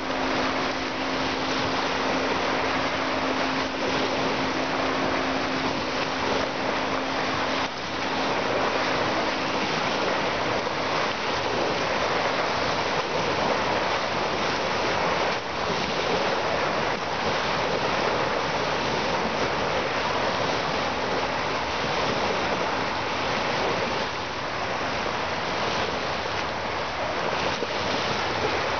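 Small waves washing in and breaking on a pebble beach: a steady rush of surf. A low steady hum sits under it for about the first seven seconds.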